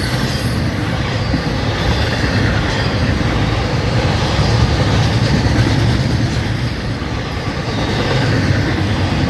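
Florida East Coast Railway freight train's intermodal cars rolling past close by: a loud, steady rumble and rattle of steel wheels on the rails.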